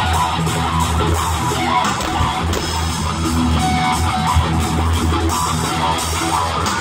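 Live rock band playing loud, led by a heavy bass guitar line with sustained low notes, with drums and guitar.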